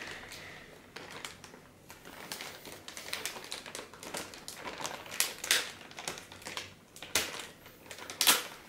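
Thin clear plastic bag being pulled and handled, rustling and crinkling in irregular crackles, the loudest one near the end.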